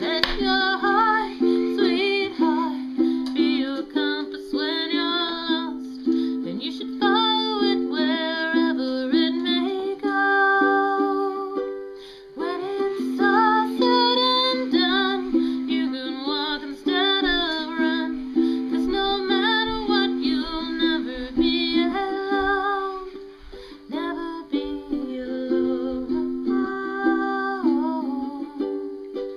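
Instrumental music: held chords under a moving melody, with short breaks between phrases about 12 and 24 seconds in.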